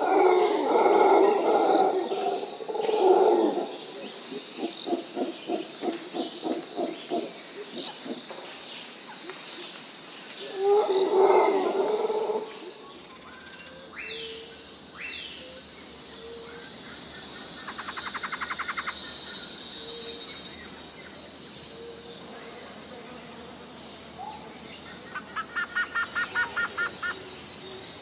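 Wild bird calls over a steady high insect buzz: loud calling, then a run of evenly pulsed calls at about two to three a second. About halfway the background changes to softer chirps and quick trills, with another short pulsing run near the end.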